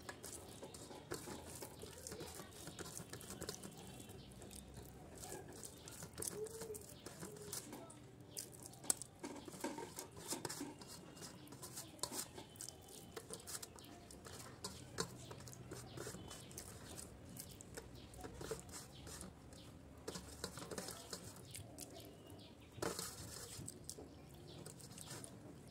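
Faint eating-by-hand sounds: fingers squishing and scooping rice against a steel plate, and chewing with many small, irregular wet mouth clicks.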